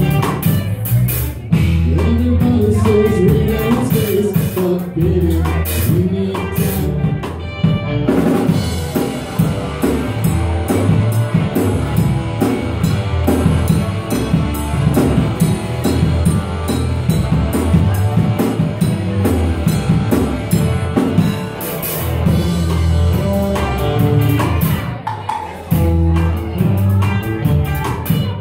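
Live band of electric guitar, bass guitar and drum kit playing, with a steady drum beat under the guitar lines; the sound turns denser about eight seconds in.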